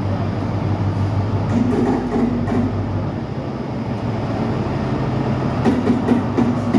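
Class 43 HST power car's diesel engine humming steadily as the train rolls slowly into the platform, with a few wheel clicks over the rail joints near the end.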